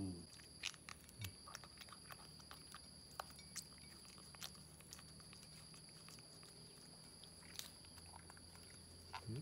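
Faint, scattered wet clicks and smacks of a baby monkey chewing grapes, with a steady high-pitched whine behind.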